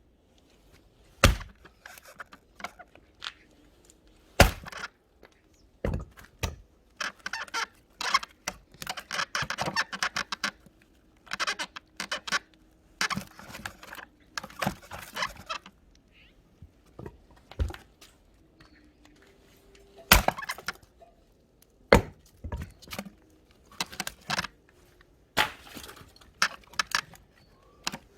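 Firewood being chopped and split: sharp strikes of a blade into wood every few seconds, with stretches of crackling and splintering as the wood breaks apart.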